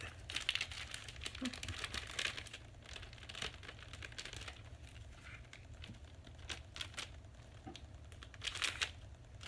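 Plastic wrapping crinkling in short bursts as trading cards are unwrapped and handled, with a few light clicks in between and another burst of crinkling near the end.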